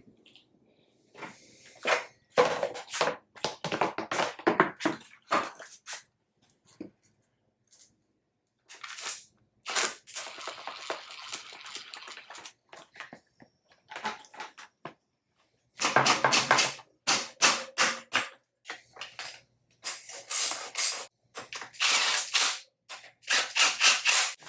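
Ratchet wrench clicking in quick runs as the motorcycle triple clamp's pinch bolts are tightened. A steady whirring sound lasts a couple of seconds near the middle.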